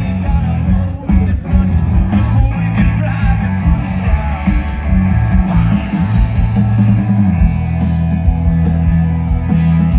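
Live rock band playing through a festival PA, heard from out in the crowd: bass and drums heaviest, with electric guitar over them.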